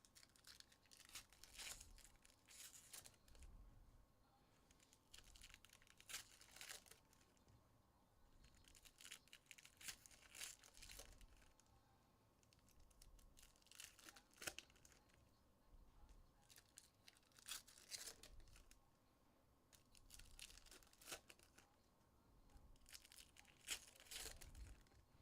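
Trading card pack wrappers being torn open and crinkled, in short faint crackling bursts every few seconds.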